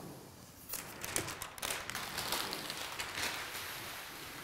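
Sheet of clear plastic mounting film crinkling and rustling as it is laid over a print on a manual roller laminator, with irregular small clicks and ticks, starting a little under a second in.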